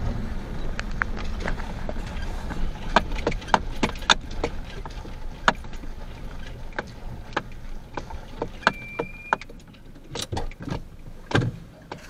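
Inside a vehicle driving on a rough snowy dirt road: a low road rumble that fades away, with many irregular clicks and knocks from the cab rattling over the bumps. A short steady high tone sounds once, about nine seconds in.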